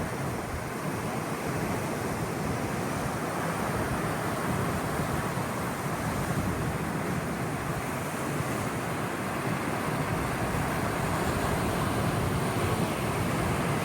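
Sea waves: a steady rushing noise that grows a little louder over the last few seconds.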